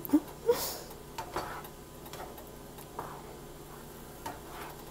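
Plastic slotted spatula stirring a creamy sauce in a nonstick frying pan: a few faint, scattered scrapes and taps against the pan.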